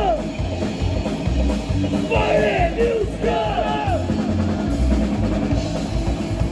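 Live psychobilly band playing a loud rock instrumental passage, driven by drum kit and bass drum. Groups of sliding, bending notes come in about two and three seconds in.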